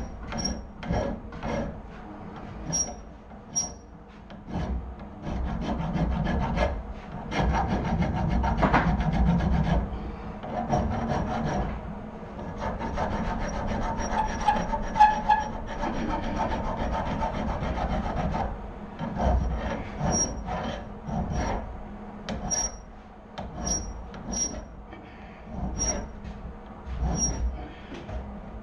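Hand file rasping down fresh weld build-up on a steel axle shaft: spaced strokes at first, a long run of quick strokes through the middle, then spaced strokes again near the end.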